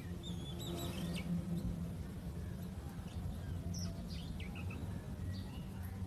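Oriental magpie-robin singing: a quick run of short whistled and chirping notes in the first second or so, and another burst of sharp chirps around the middle, over a steady low hum.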